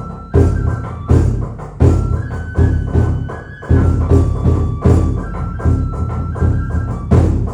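Kagura music: a deep drum struck hard about every 0.7 s, under a bamboo flute holding long high notes that step up and down in pitch.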